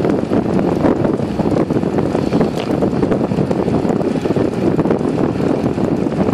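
Wind buffeting the microphone of a phone mounted on a moving bicycle's handlebars: a loud, steady rushing noise, peppered with many small ticks and rattles from the ride over the asphalt.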